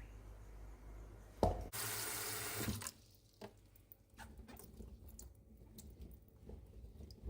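A knock, then water running from a tap for about a second before it is shut off, followed by a few faint drips and small clicks.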